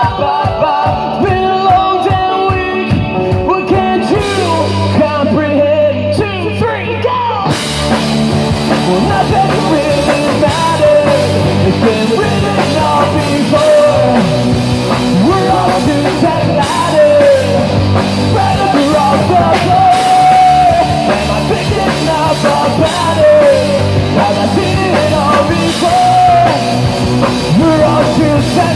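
A live rock band playing: male vocals over electric guitars, bass guitar and drum kit. It opens sparse, low notes fill in about four seconds in, and the full band with drums and cymbals comes in about seven seconds in.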